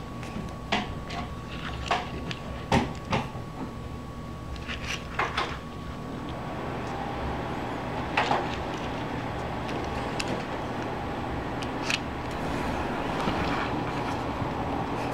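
Scattered light taps and clicks of a small die-cast stock car model being turned by hand on a wooden floor, over a steady background hum and hiss.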